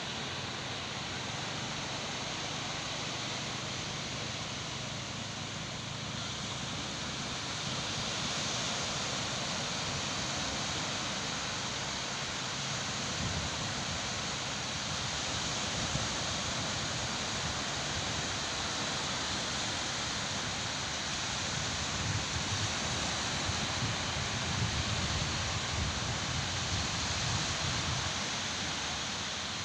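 Steady rush of small waves breaking on a shallow sandy shore, with wind buffeting the microphone, gustier in the second half.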